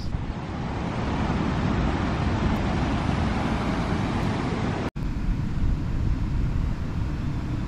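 Steady rushing of water pouring through a dam spillway, broken by a brief cut about five seconds in.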